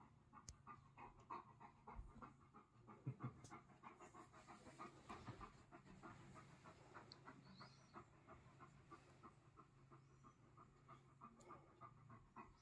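Pyrenean mountain dog panting softly, a quick, even rhythm of short breaths.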